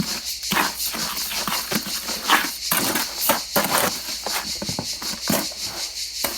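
Dry mix of sharp sand and lumpy cement being turned over by hand: a tool scraping and crunching through the gritty mix in irregular strokes, several a second.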